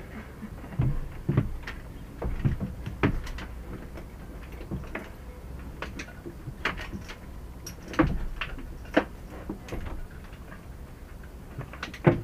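Irregular knocks and clunks as a small marine diesel engine hanging from a block and tackle is guided by hand into the boat's engine bay, with a sharp knock about eight seconds in and another near the end.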